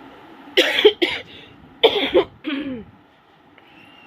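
A woman coughing in two short bouts about a second apart, each of two or three coughs. The cough comes from a cold with phlegm on her chest and laboured breathing.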